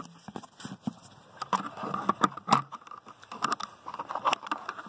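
Close handling noise: irregular clicks, taps and short scrapes of hands working a fiber drop cable around inside a plastic fiber box.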